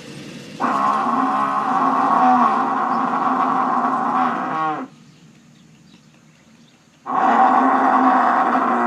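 Buffalo giving two long, drawn-out lowing calls, each about four seconds, the pitch dropping as each call ends; the second begins about seven seconds in.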